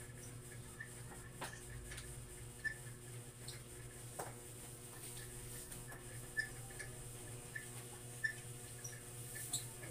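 Quiet room tone: a steady low hum with scattered faint high chirps and a few small sharp clicks.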